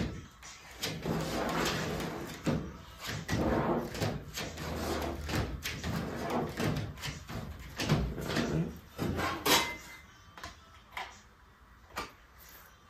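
Filler spreader scraping and tapping against a cardboard mixing board as glazing putty is mixed and kneaded: irregular scrapes and sharp clicks, quieter over the last few seconds.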